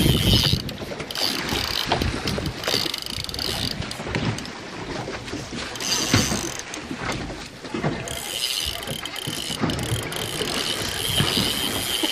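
Spinning reel's drag whining in several spurts as a hooked Australian salmon runs and pulls line off, the longest run near the end, over low wind rumble and handling knocks.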